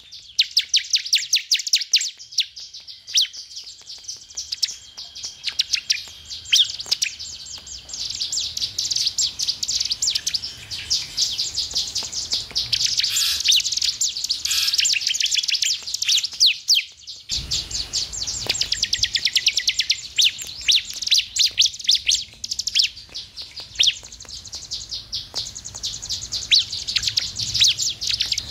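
Bar-winged prinia (ciblek) singing: a fast, continuous stream of high, sharp repeated chips, with a brief break about 17 seconds in.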